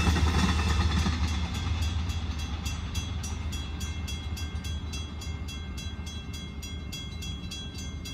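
Railroad crossing bell ringing rapidly, about four strokes a second, as the rumble of a passing passenger train fades away.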